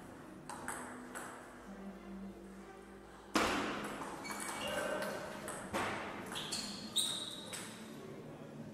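Table tennis rally: the ball clicking off the bats and the table, with a few harder hits. The loudest hit, about a third of the way in, echoes in the hall. Short squeaks come between the later hits.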